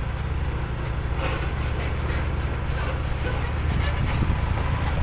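Vehicle engine running with a steady low drone, with road noise from slow travel over a rough, broken road surface.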